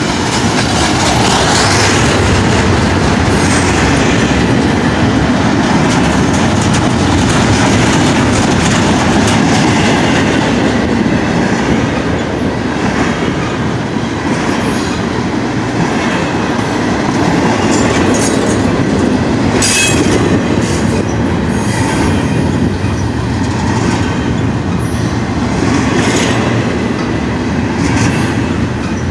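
Double-stack intermodal well cars of a freight train rolling past close by: a loud, steady rumble of steel wheels on rail. A few short, sharp high-pitched sounds from the wheels stand out in the second half.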